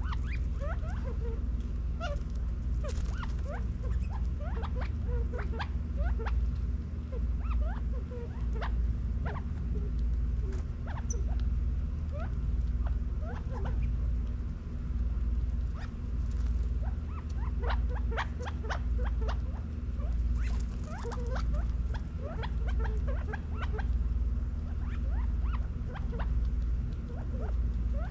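A covey of Gambel's quail feeding on the ground, giving many soft, short chirping and clucking contact calls scattered throughout. A steady low hum runs underneath.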